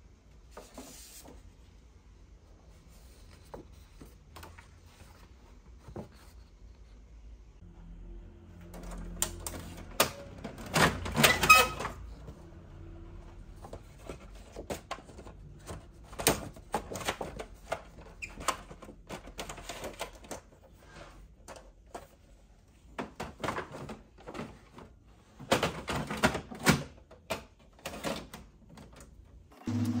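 Brother ink-tank inkjet printer at work, clicking and knocking as it feeds paper and moves its print carriage. A louder run of mechanical clatter comes about eleven seconds in and again near the end, and printed card stock is handled in between.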